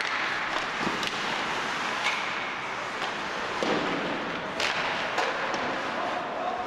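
Ice hockey play in a rink: sharp cracks and clacks of sticks, puck and boards over a steady din, the loudest cracks coming a little past halfway.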